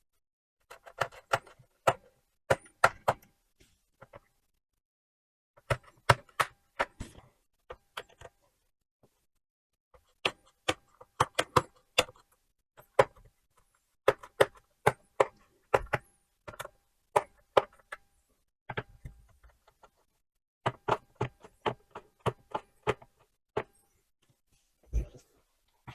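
Small Phillips screwdriver clicking and tapping against laptop case screws in irregular bursts of sharp ticks, with short pauses between them, as the captive bottom-cover screws of a Lenovo ThinkPad T450 are turned loose.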